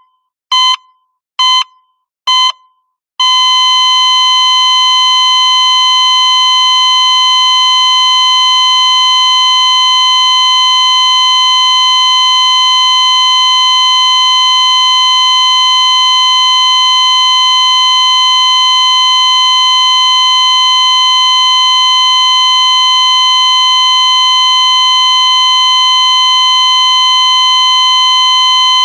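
Hospital heart monitor beeping with each heartbeat, about four high beeps a little under a second apart. About three seconds in, the beeps give way to one long unbroken flatline tone, the monitor's sign that no heartbeat is being detected.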